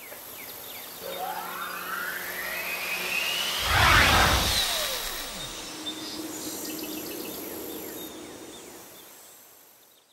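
Logo animation sound effect: a rising whoosh that builds to a deep boom about four seconds in, followed by a falling sweep and a faint shimmer that fades out.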